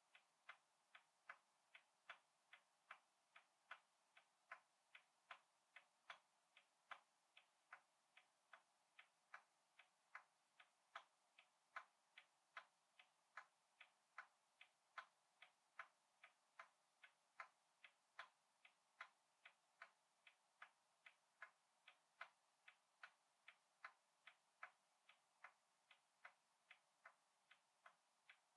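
Faint, even ticking, a little over two ticks a second, keeping a steady beat throughout.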